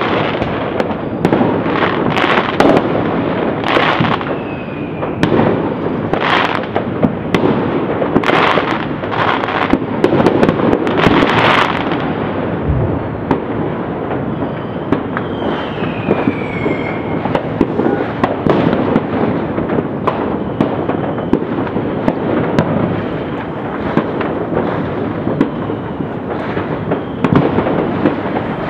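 Many fireworks and firecrackers going off all over at once: a dense, continuous crackle of pops and bangs, with several louder booms in the first half and a falling whistle about halfway through.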